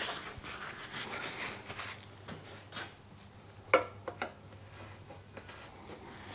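Rag rubbing and wiping against the motorcycle's fuel tank, a rustling scrub, with a sharp click a little past halfway and a lighter click just after.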